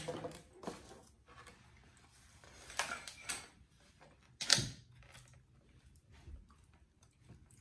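Styrofoam takeout containers handled on a table: scattered rustling and light clacks of the foam boxes, with one sharp knock about four and a half seconds in.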